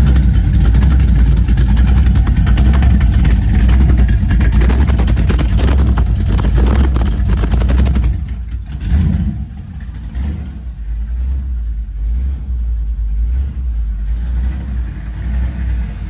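An LS376/525 crate V8 with Hooker Blackheart headers runs loud at raised revs for about eight seconds. It then drops back to a lower, uneven idle, with one quick blip of the throttle shortly after.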